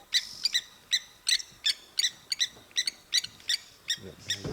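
A bird calling a rapid series of short, sharp, ringing notes, about three to four a second and sometimes in quick pairs, with a faint low sound starting near the end.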